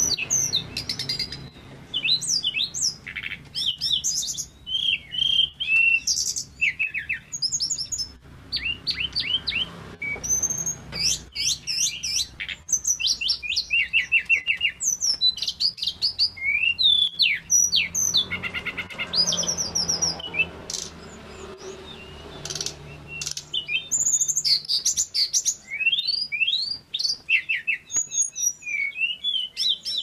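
Male hill blue flycatcher singing in full voice: a long, varied run of quick high chirps, rapid trills and rising and falling whistles, with only brief pauses.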